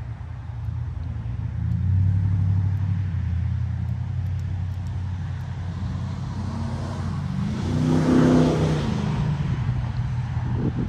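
A motor vehicle's engine running with a low hum, swelling to its loudest about eight seconds in and then easing off, like a car going by.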